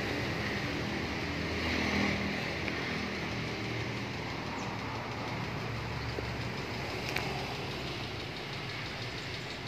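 Steady engine noise with a low hum, with one faint click about seven seconds in.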